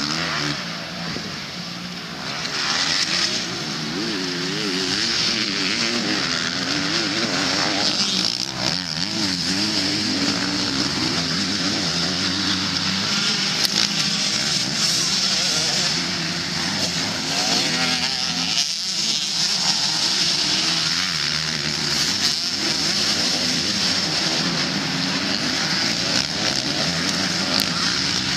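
MX2-class motocross bike engines racing, revs rising and falling as riders take the jumps and corners, with more than one bike passing close.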